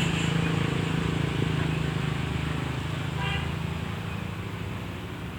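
A motor vehicle's engine running as a steady low drone that slowly fades away, with a brief high chirp about three seconds in.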